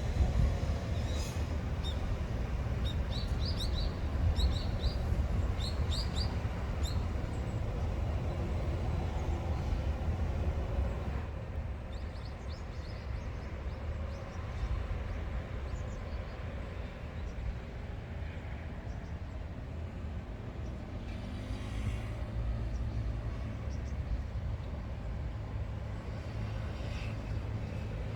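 Outdoor ambience: a steady low rumble, with a few short, high bird chirps in the first several seconds and again briefly around eleven seconds in.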